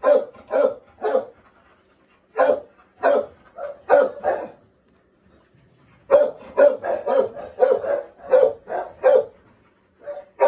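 A dog barking repeatedly, in three runs of quick barks about two a second, with short pauses between the runs.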